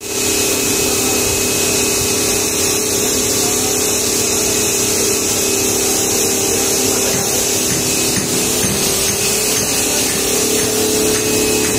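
Nylon zipper coil-making machine running steadily: a continuous mechanical whir with a steady hum.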